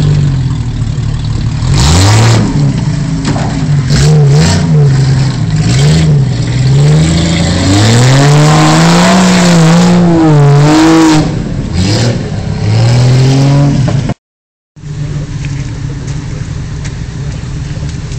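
Offroad Jeep Cherokee's engine revving repeatedly under load as the vehicle works its way out of a mud pit, the pitch climbing and falling again and again. After a cut near the end, a steadier, quieter engine running at a constant pitch.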